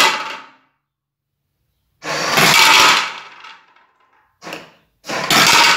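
Dry dog kibble dropping down a chute and rattling into a plastic box, dumped one cupful at a time by the rotating plate of a home-built automatic pet feeder. The food comes in separate bursts of about a second each, plus one short one, with silence between.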